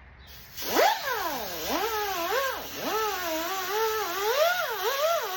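A single wavering tone sliding smoothly up and down in pitch in a continuous melodic line, starting about half a second in, over a steady hiss.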